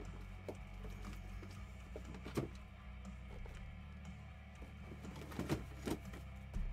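Quiet background music under scattered clicks and taps of handling, the sharpest about two and a half seconds in and a pair about five and a half to six seconds in.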